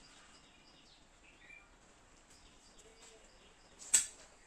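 Faint birds chirping over quiet outdoor background noise, then one sharp, loud strike near the end.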